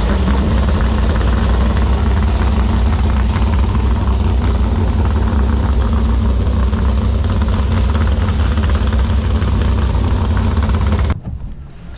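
Supercharged 468 cubic-inch big-block Chevy V8 on open headers in a V-drive Sanger boat, idling with a loud, steady rumble just after being fired up. The sound cuts off suddenly about eleven seconds in.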